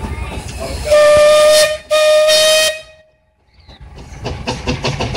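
Steam whistle on a 25 hp Russell steam traction engine sounding two short blasts, each a steady, clear tone that cuts off sharply. Near the end the engine starts up with a fast, regular beat of exhaust strokes.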